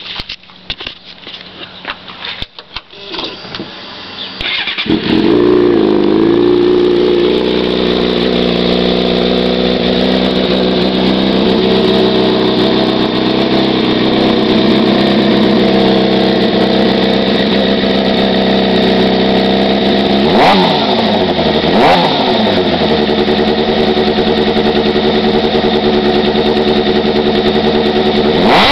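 2007 Suzuki GSX-R600's inline-four engine through a homemade slip-on exhaust, starting about five seconds in after some clicking and knocking, dropping from a fast idle to a steady idle, then blipped twice about two-thirds of the way through.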